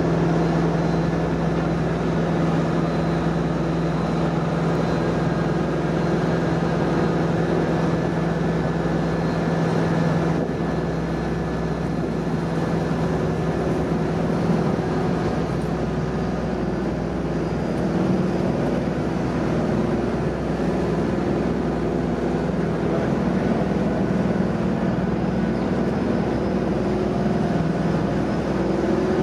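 A passenger ferry's diesel engines running steadily with a droning hum as the boat manoeuvres alongside the pier. The engine note changes about halfway through.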